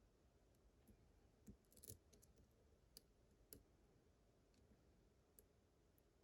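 Near silence broken by a few faint, sharp clicks, a small cluster about two seconds in and single ones later: lock picks working the pin tumblers of a Vachette VIP lock cylinder.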